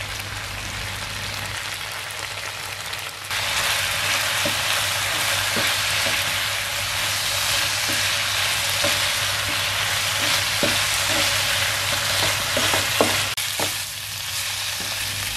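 Chicken pieces sizzling in oil in a non-stick frying pan, their cooking water boiled off, while a wooden spatula stirs them with scattered light scrapes and taps. The sizzle gets louder about three seconds in.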